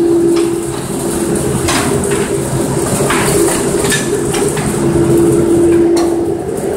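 Humphries belt manlift running: a steady mechanical hum and rumble from the moving lift, with several sharp clacks as it travels.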